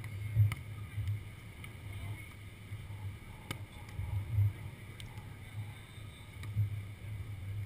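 Wind buffeting the camera's microphone: a low, gusty rumble that swells several times, with a couple of faint clicks.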